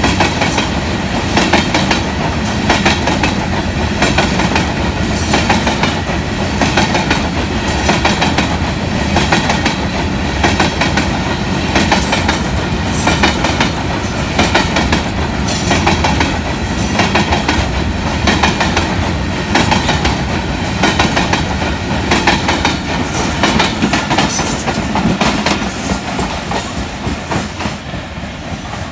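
Coal freight train's wagons rolling past at speed, wheels clattering over the rail joints in a repeated rhythm with intermittent high wheel squeal. The noise fades near the end as the last wagons go by.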